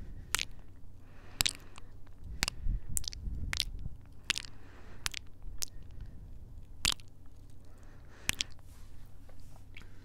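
Close-miked kisses and wet lip smacks made right against the microphones of a Tascam recorder, about ten of them at irregular intervals.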